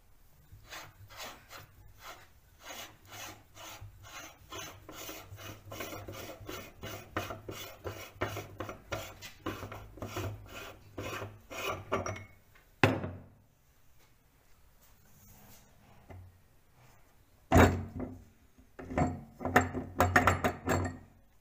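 Hand-cranked cast-metal meat grinder crushing coloured chalk: a rhythmic gritty grinding, about three strokes a second, for some twelve seconds. Then a single sharp knock, and near the end a run of loud metal knocks and clatter from the grinder's front ring and cutting plate.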